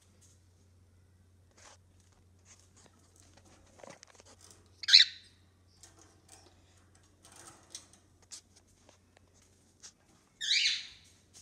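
Cockatiel giving two loud, harsh squawks, a short one about halfway through and a longer one near the end, with faint rustling and clicks in between.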